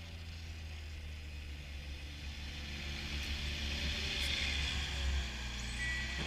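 PistenBully 400 Winch snowcat running: diesel engine hum and track noise growing louder as the machine crawls past close by.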